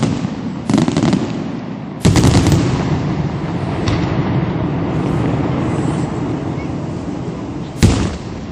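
Bruscella Fireworks aerial shells bursting in a display: a sharp bang about a second in, a bigger one at about two seconds followed by several seconds of dense, continuous noise from the bursts, and another sharp bang near the end.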